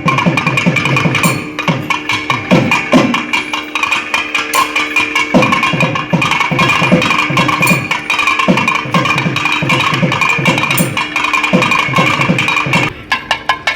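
Kerala temple festival ensemble playing: rapid, dense drum strokes over a steady droning reed pipe. The held drone stops shortly before the end while the drumming goes on.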